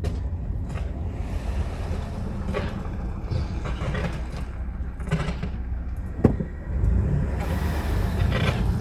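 A car on the move, its steady low road and engine rumble heard from inside, with a few light knocks and one sharper knock about six seconds in.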